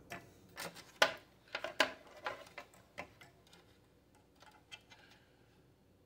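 Light clicks and taps of hardware being handled inside a desktop PC case during disassembly, about half a dozen in the first half, the sharpest about a second in.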